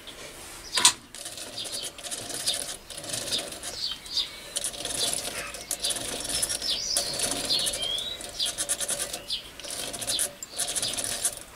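Cordless drill driving a toolpost drill spindle on a mini lathe to drill holes in a metal tube: the drill runs in spells, with short high squeaks throughout and a sharp knock about a second in.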